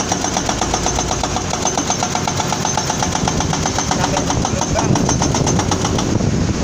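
Diesel engine of heavy construction equipment, an excavator, running with a rapid, even clatter of about ten knocks a second over a steady rumble of highway traffic. The clatter fades near the end.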